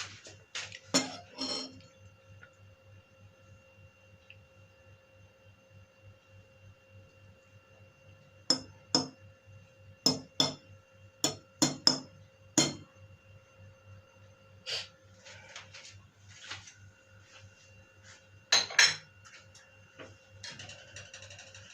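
Metal utensils knocking, scraping and clinking against pots and plates as food is dished up, in irregular clusters of sharp clinks. A faint steady hum with a few constant tones runs underneath.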